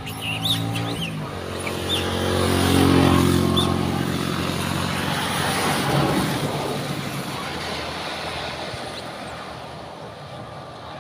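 Several motorcycles passing on a wet road: the engine noise and tyre hiss build to a peak about three seconds in, then fade slowly as they ride away.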